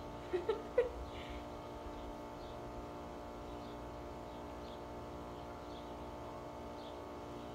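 A steady machine hum made of many fixed tones, with two or three short voice sounds about half a second in and faint high chirps repeating now and then.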